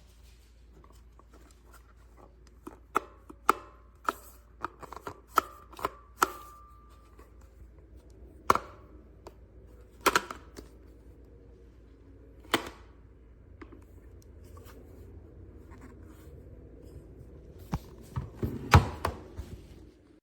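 Irregular sharp clicks and knocks of hard plastic and metal shower-head parts being handled and set down, one of them ringing briefly, with a denser cluster of louder knocks near the end.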